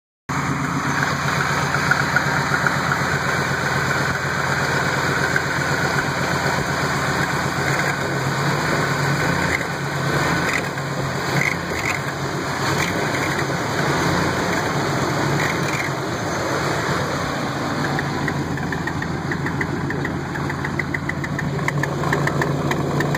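2000 Ford F-150's 5.4-litre V8 running with a fast chirping that keeps time with the engine: an exhaust leak at a bad exhaust-pipe flange.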